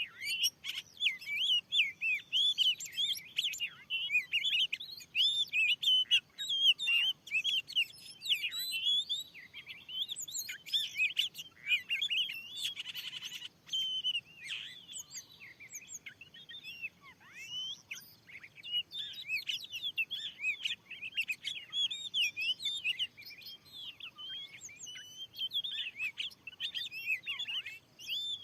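Oriental magpie-robin (kacer) singing a rapid, unbroken stream of varied chirps and whistles, with a short harsh rasp around the middle.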